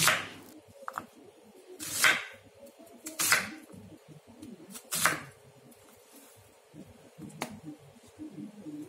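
Serrated kitchen knife cutting through a peeled onion and knocking on a wooden cutting board: five separate cuts, spaced about one to two and a half seconds apart.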